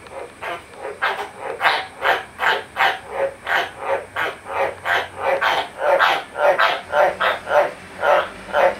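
White's tree frog (Australian green tree frog) calling: a steady run of short, hoarse croaks, about three a second.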